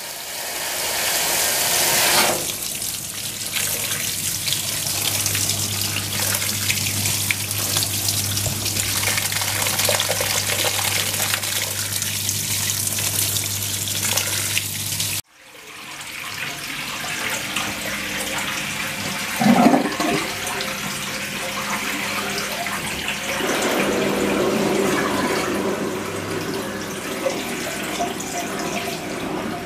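Fisher & Paykel SmartWash top-loading washing machine spraying water onto wet clothes in its drum, a steady rush of splashing water over a low hum from the machine. It now runs with a new drain pump, without the noise of the worn one. The sound cuts out abruptly about halfway and builds back up, with a brief louder burst a few seconds later.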